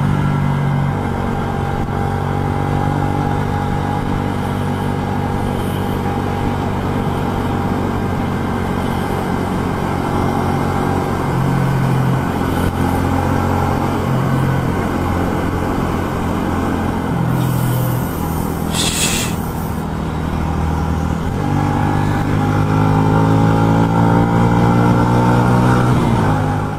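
A truck's engine running at steady road speed, heard from inside the cab, its pitch shifting in steps several times as the revs change. A short hiss of air sounds a little past two thirds of the way through.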